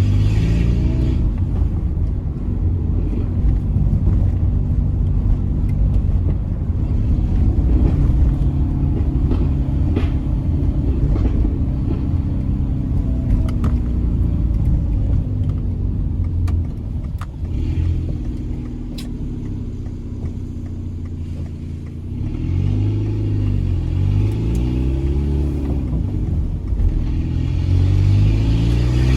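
Peugeot 206 1.4 8V four-cylinder engine with a straight-through exhaust, no catalytic converter, running loud and droning as the car is driven. It drops back for a few seconds after the middle, then revs rise and fall several times near the end as the car accelerates through the gears.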